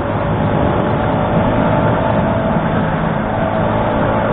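Motorcycle engine running at a steady speed under way, with a steady drone and wind rushing over the action camera's microphone.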